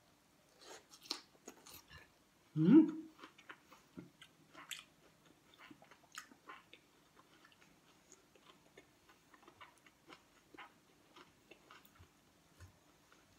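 Close-up mouth sounds of a person chewing soft rice and beef eaten by hand: small, irregular wet clicks and smacks. About three seconds in comes a brief low hum that rises in pitch, the loudest sound.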